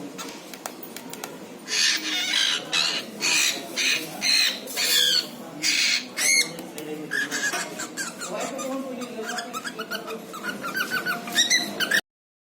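Pet cockatiel chattering and calling: loud, sharp calls in short bursts, then a quick run of warbling chirps that cuts off suddenly just before the end.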